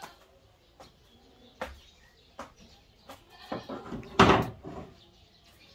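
A goat bleats once, loudly, about four seconds in, after a few light clicks.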